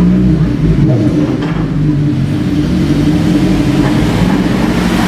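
A motor vehicle's engine running in street traffic: a steady, low drone.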